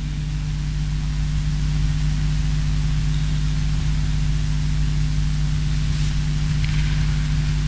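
Steady electrical hum and hiss from a live sound system, with an open microphone and no singing for a few seconds.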